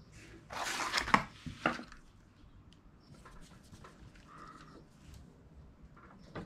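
Workshop handling noise: a short scrape with two sharp knocks as the plywood panel and tools are handled, then faint scattered ticks of a hand screwdriver turning screws into an aluminum rail on the plywood edge.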